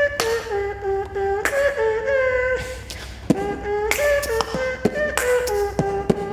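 A boy beatboxing, humming a stepping melody of held notes while punctuating it with sharp mouth clicks and percussive hits.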